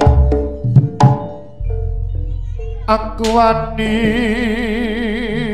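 Javanese jaranan gamelan music played live: kendang drum strokes and ringing metal-chime notes for about a second and a half. Then a low steady drone, over which a melody slides up and holds one long note with a wide vibrato.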